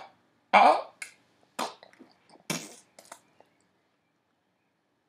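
A man's voice making about four short, throaty gasps within the first three seconds or so, the first the loudest.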